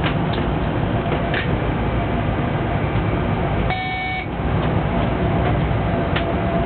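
Steady rumble inside the cab of a Siemens Taurus electric locomotive running along the track, with a few light knocks. About four seconds in, a short electronic beep sounds for about half a second.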